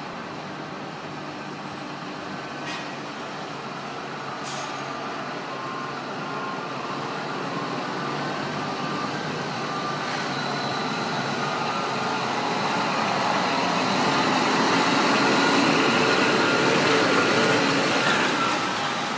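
Scania truck's diesel engine running as it manoeuvres a B-double, growing steadily louder as it comes close. There are two short hisses of air about three and four and a half seconds in.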